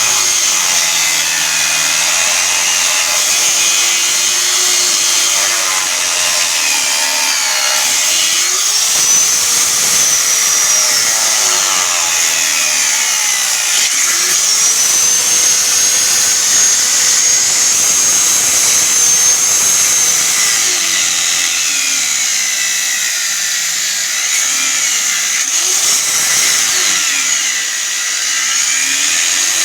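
Electric power grinder working steel. Its motor pitch sags and recovers in long swells as the tool is pressed into the metal and eased off.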